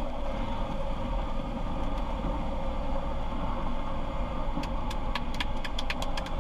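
Light single-engine plane's piston engine and propeller running steadily, heard from inside the cockpit as it rolls down the runway. About two-thirds of the way in, a quick run of sharp clicks begins over the engine.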